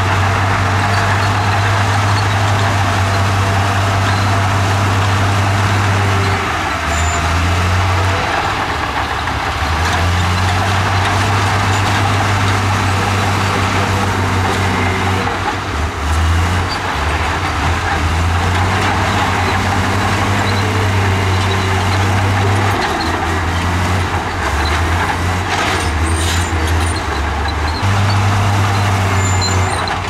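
Komatsu crawler bulldozer's diesel engine running under load while it pushes rock and dirt, a loud low drone that steps up and down in pitch every few seconds, over a steady clattering noise of the machine at work.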